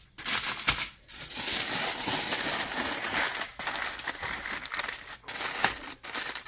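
Aluminium foil being folded and crumpled by hand around a pipe wrench, an irregular crackling and crinkling with sharp crackles and short pauses.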